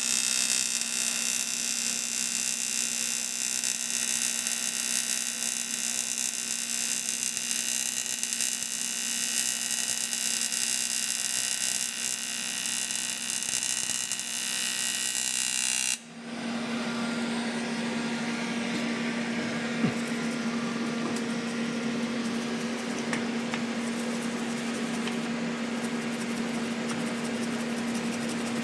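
AC TIG welder arc buzzing steadily while aluminium is welded with filler rod. The buzz is hissy and full of steady tones, changes abruptly about sixteen seconds in, then goes on as a steadier, lower hum.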